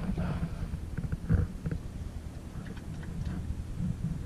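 Scattered light clicks and knocks from hands working on the stainless-steel gear and frame of a Monitor windvane self-steering unit, over a steady low rumble. The sharpest knock comes about a second and a half in.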